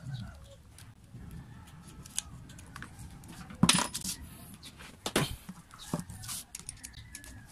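Clicks, knocks and metallic clinks of an angle grinder and a small metal tool being handled and set down on a tabletop, the loudest knock about three and a half seconds in, with two more near the end.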